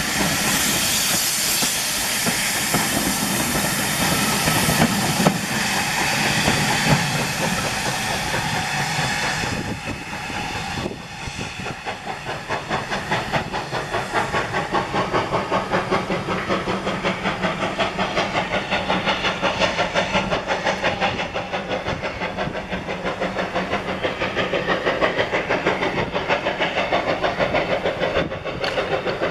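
Steam-hauled train of coaches rolling past close by with a loud hiss and rumble. Then, about a third of the way in, the locomotive's exhaust takes over, chuffing in quick, even beats, several a second, as it works away into the distance.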